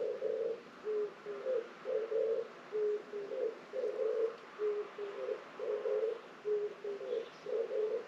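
Oriental turtle dove cooing its song: the same short phrase of low hooting notes, repeated evenly about every two seconds.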